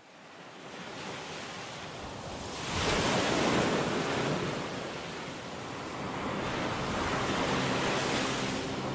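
Sea waves washing ashore, fading up from silence, with a larger surge about three seconds in and another swell later.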